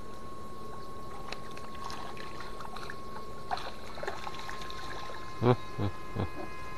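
Electric fishing shocker running, with a steady high-pitched whine while its electrode is in the water. A man's voice makes a few short sounds near the end.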